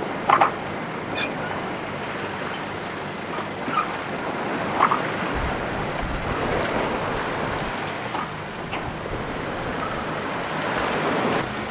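Wind and sea rushing past a sailboat's hull under full sail, with a few brief sharp knocks and creaks from the rig. Beneath it runs the constant whirring of the boat's generator.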